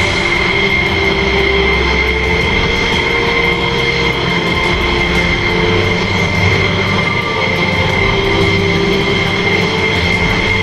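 F-16 fighter jet engines running on the ground: a steady loud roar with a high whine.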